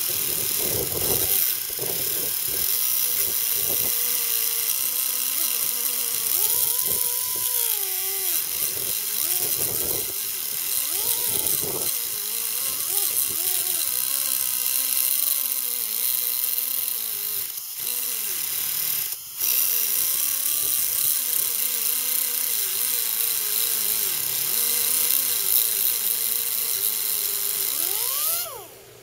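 A small handheld abrasive cut-off wheel cutting through a steel bolt: a steady, loud, high grinding hiss, with the motor's pitch wavering as the wheel loads and unloads. It cuts out for a moment about two-thirds of the way through, then stops sharply near the end.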